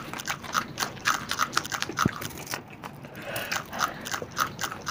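Close-miked eating of biryani and raw green chillies: a quick, steady run of crunchy bites and chews, about four a second.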